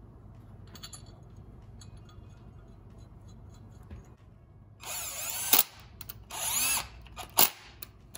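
Small handheld power tool with a long bit, its motor run in two short bursts and then a brief blip in the second half, the pitch rising and falling as it spins up and slows down.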